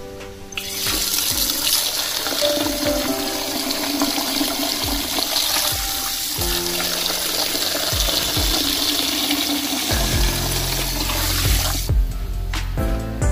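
Water running from an outdoor tap into a plastic bucket of chicken feed mash. It starts about half a second in, runs steadily, and stops about a second before the end.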